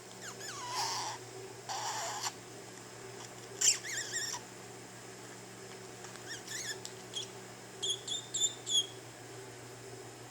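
Pet budgerigar making squeaks, raspy squawks and short gliding chirps in separate bursts with pauses between, ending in a quick run of chirps near the end.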